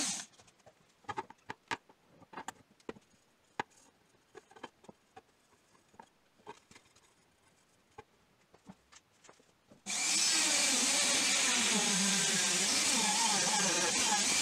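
A handheld rotary tool with a felt polishing wheel stops right at the beginning. Then come about ten seconds of scattered small clicks and taps as the steel pincers are handled. About ten seconds in, the rotary tool starts again and runs steadily, buffing the pincer handles in the final polishing stage.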